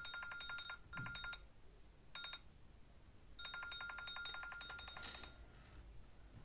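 Samsung flip phone sounding an electronic ringtone, a rapidly pulsing beep. It comes in bursts that cut off and restart several times, the longest near the end, with a soft knock about a second in.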